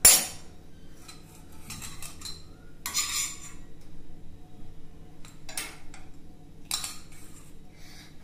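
A metal spoon scraping a stainless-steel frying pan and clinking against a ceramic bowl as cooked corn kernels are scooped out. A sharp clack right at the start is the loudest sound, followed by a few shorter scrapes and clinks.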